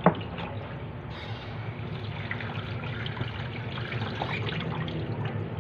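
Tap water running over raw chicken pieces as they are rinsed by hand in a plastic basin of water, with splashing; the running water grows stronger about a second in. A sharp knock sounds right at the start.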